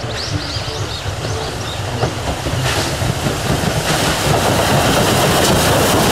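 Steam locomotive hauling passenger coaches running past, its rumble and noise growing steadily louder as it approaches.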